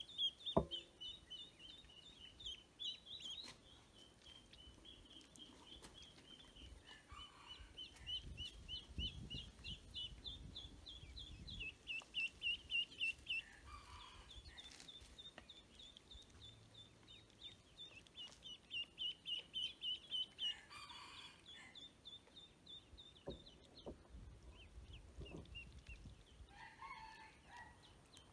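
Ducklings peeping in a rapid, almost unbroken string of short high calls. A few lower calls break in now and then.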